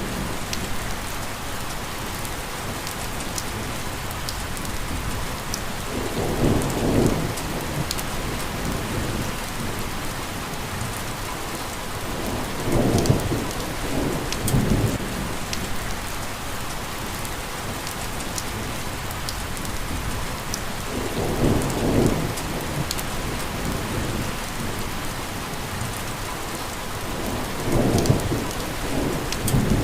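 Steady rain falling, an even hiss throughout, with four low rumbles of thunder, each lasting a second or two, about six, thirteen, twenty-one and twenty-eight seconds in.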